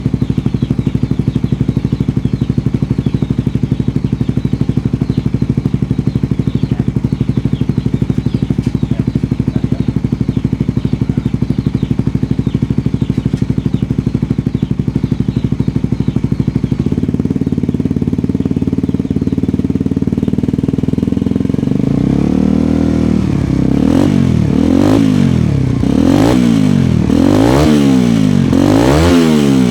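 Suzuki GSX-S150's single-cylinder engine running through a made-to-order aftermarket exhaust. It idles steadily, steps up to a higher steady speed about two-thirds of the way in, then near the end is revved up and down in quick blips, about one a second.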